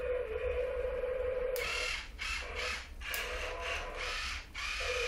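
Child's ride-on toy excavator making a steady buzzing hum, broken in the middle by about three seconds of rough, ratchety grinding noise as its controls are worked.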